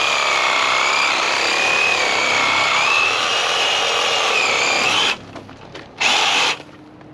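Power saw cutting through a pig carcass's spine, running steadily with a whine that wavers a little in pitch. It stops about five seconds in, then runs again for half a second.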